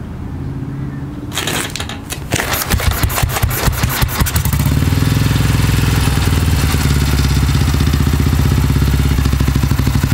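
Royal Enfield Bullet 500's single-cylinder four-stroke engine being kickstarted. It catches about two seconds in with rapid, even firing pulses, then settles into steady running after about four and a half seconds.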